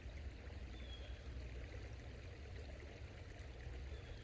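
Small forest creek running steadily, a soft continuous sound of flowing water, with a brief faint high chirp about a second in.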